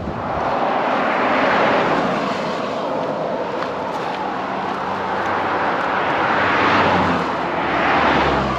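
Road traffic passing close by: tyre and engine noise from cars swells and fades several times, with one car going past near the end.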